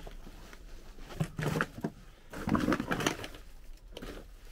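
Footsteps crunching through snow and snow-covered twigs, in a few uneven clusters of steps.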